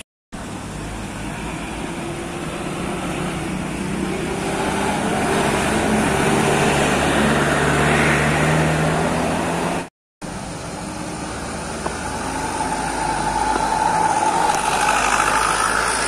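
A diesel tour bus climbing a bend and passing close, its engine growing louder over several seconds. After a cut, another vehicle's engine builds with a rising whine as it approaches.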